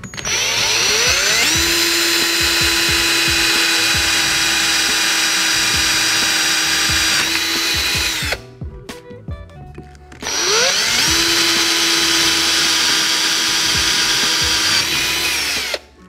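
Power drill boring holes through a fiberglass boat console: two long runs, each winding up to a steady high whine and winding down at the end, with a short pause between them.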